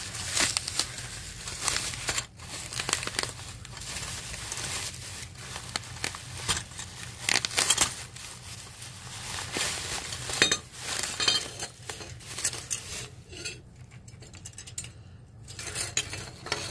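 Bubble wrap crinkling as it is pulled off a metal dragonfly wind chime, with the chime's metal pieces clinking and jangling as it is handled. The clatter thins out a few seconds before the end.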